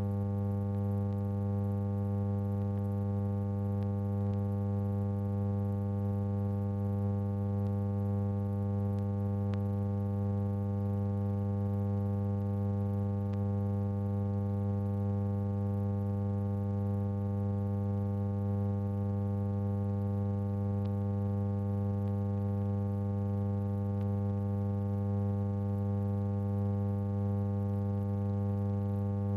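Steady electrical hum, a low tone with a ladder of evenly spaced overtones that never changes. It is the background hum on the soundtrack of a silent archive film.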